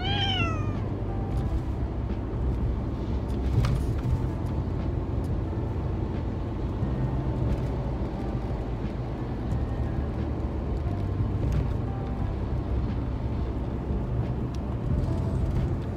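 Steady low rumble of a car on the move, heard from inside the cabin. At the very start a cat gives one short meow that falls in pitch.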